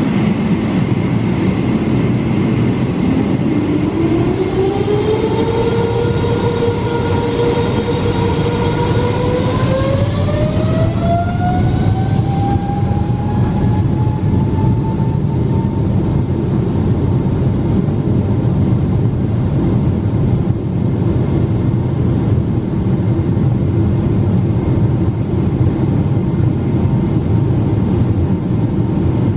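Boeing 777-300 turbofan engines spooling up for takeoff, heard from inside the cabin: a whine rises a few seconds in, holds briefly, then climbs again to a higher steady pitch as takeoff thrust is set. A heavy low rumble runs under it as the aircraft rolls down the runway.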